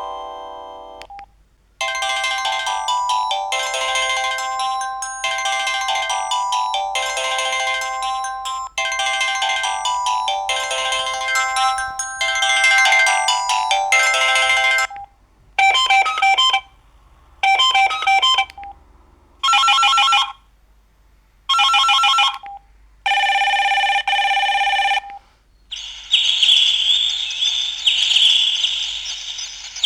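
Samsung SGH-E330N mobile phone playing its built-in tones one after another through its small speaker. First comes a polyphonic ringtone melody for about 13 seconds. Then come short electronic beep phrases about two seconds apart, a steady tone, and a brighter, buzzier tone near the end.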